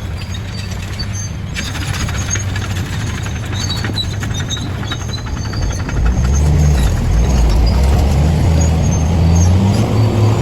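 Bulldozer's diesel engine running under load, its pitch and level rising about six seconds in, with scattered high squeals and a fast clatter from the working machine.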